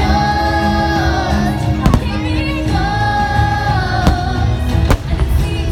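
Fireworks show soundtrack: music with long held sung notes, with aerial firework shells bursting over it in three sharp bangs, about two, four and five seconds in.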